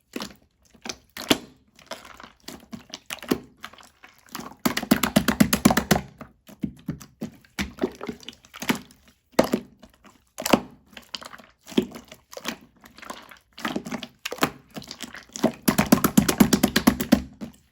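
Marbled slime being pressed and folded by hand, making sharp crackling pops as trapped air bursts, with two spells of fast popping about five and sixteen seconds in.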